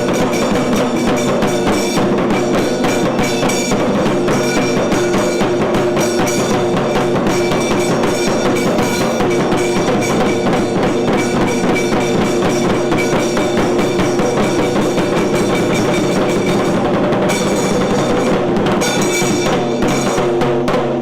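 Tiru Kailaya Vadyam ensemble playing loud and without a break: dense temple drumming and percussion under several steady, sustained horn tones.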